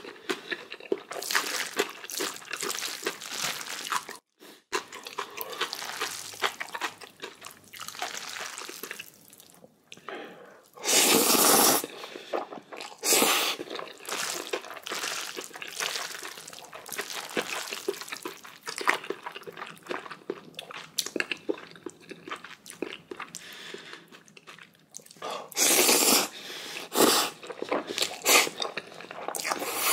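Close-miked mouth sounds of eating black-bean instant noodles (Chapagetti) with kimchi: steady chewing and crunching, broken by a few louder bursts of about a second each that are typical of slurping noodles.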